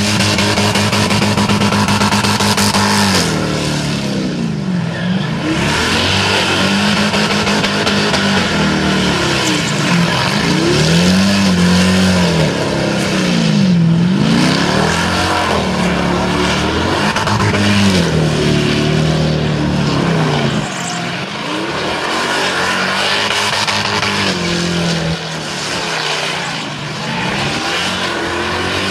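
Holden VY SS Commodore's naturally aspirated LS1 V8 held at high revs in a burnout. After the first few seconds the revs dip and climb again over and over as the rear tyres spin and smoke.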